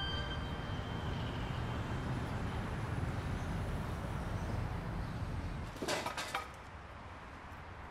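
Steady low rumble of city traffic. About six seconds in there is a short run of light clinks, and then the sound drops to a quieter hush.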